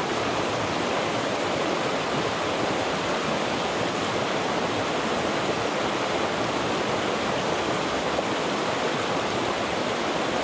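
Mountain stream rushing over rocks in small rapids: a steady, even rush of water.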